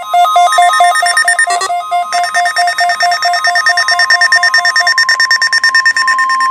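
Several NOAA weather radios sounding their alert alarms at once for the Required Weekly Test: loud electronic beeping at different pitches and rates overlapping, with a steady tone underneath. Another radio's faster beeping joins in about two seconds in.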